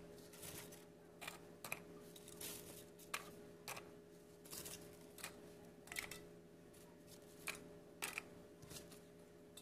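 Faint, scattered light clicks, roughly one every half second to a second, over a low steady hum.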